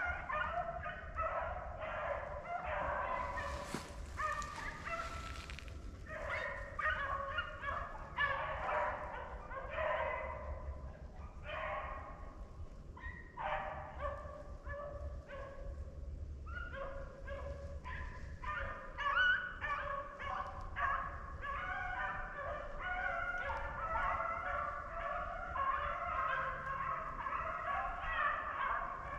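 A pack of beagles baying on a rabbit's track, many voices overlapping in a continuous chorus, the sign that the hounds are running the rabbit on its scent.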